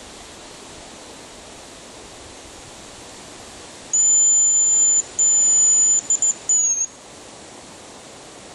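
Loud, high-pitched whistle sounding about four seconds in: two long steady blasts with a short break between, then a few quick pips and a last note that drops in pitch.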